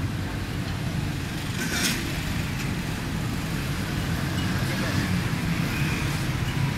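Busy street ambience: steady traffic rumble with indistinct voices around, and one short sharp sound about two seconds in.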